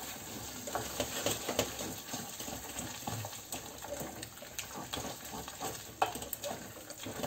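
Wooden spoon stirring and beating thick brandada de bacalao, a salt cod and potato purée, in a stainless steel saucepan, with irregular light taps of the spoon against the pan.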